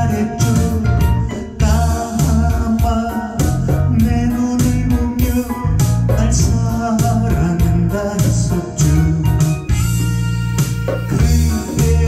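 A man singing into a microphone over band accompaniment with a steady beat and strong bass.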